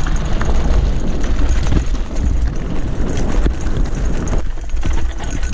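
Gravel bike descending a rocky dirt trail: tyres crunching over gravel and the bike rattling over rocks, with heavy wind rumble on the handlebar-mounted microphone.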